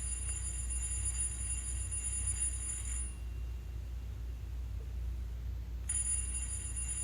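ESU LokSound sound decoder in an HO-scale GE AC44C6M locomotive model playing its startup sequence: the alarm bell rings in thin high steady tones, stops about three seconds in and rings again about three seconds later, over a steady low hum.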